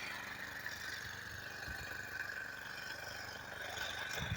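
Faint, steady engine hum with a constant high whine.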